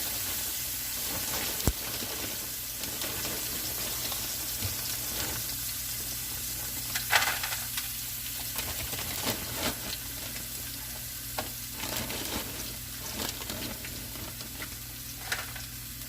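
Diced onions and green peppers sizzling steadily as they stir-fry in a hot pan, with scattered clicks and scrapes of a utensil stirring them, a sharper knock about 2 seconds in and again about 7 seconds in.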